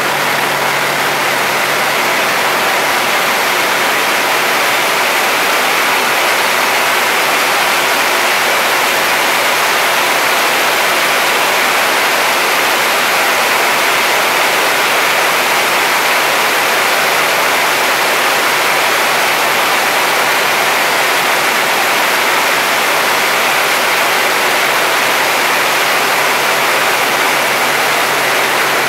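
Yak-3U's Pratt & Whitney R-2000 radial engine running at display power under a loud, steady rush of airflow, heard from inside the closed cockpit.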